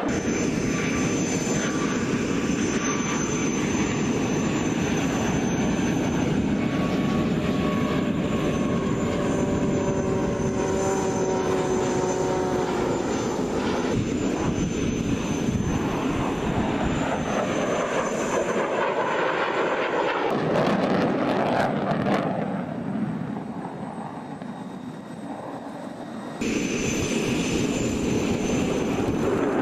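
Jet aircraft flying past in formation: a steady jet noise with engine whine tones gliding slowly down in pitch. The noise fades for a few seconds, then comes back suddenly near the end.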